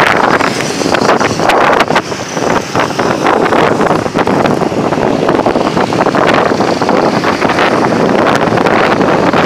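Loud wind buffeting the microphone of a phone carried on a moving motorbike, over motorbike engines and road traffic running underneath.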